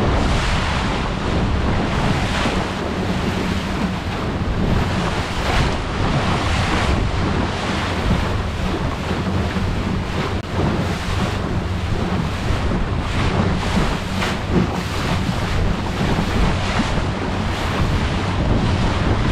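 Motorboat under way: a steady low engine hum under the rush of water and wind buffeting the microphone.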